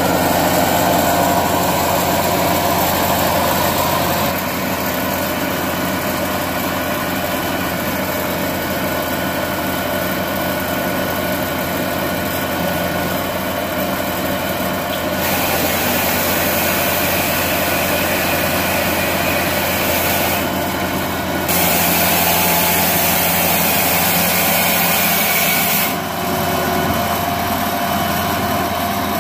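Hydraulic firewood processor running under power: a steady mechanical drone from its drive and hydraulic pump. From about halfway through, a hiss rises over it, louder for a few seconds near the end, as the hydraulic control levers are worked.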